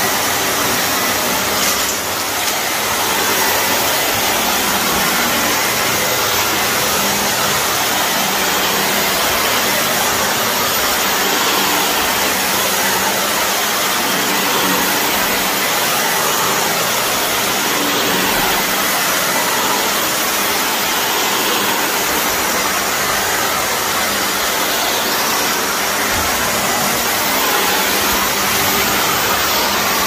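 Shark upright vacuum cleaner running steadily as it is pushed over carpet, sucking up dry soil: an even airflow noise with a steady low hum underneath.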